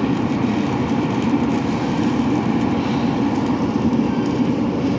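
Steady mechanical drone of running machinery, like an engine running at a constant speed, with no breaks.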